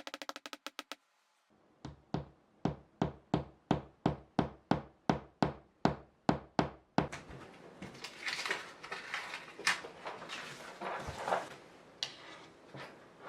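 A hammer driving in a nail with about fifteen quick, even blows, roughly three a second. A brief run of rapid clicks comes just before the blows, and loose clattering and rustling of handling follows them.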